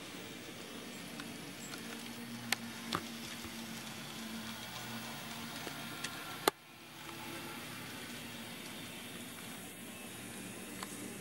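N-scale model diesel locomotives running on a layout, heard as a faint steady hum under a low hiss, with a few sharp clicks; the loudest click comes a little past halfway.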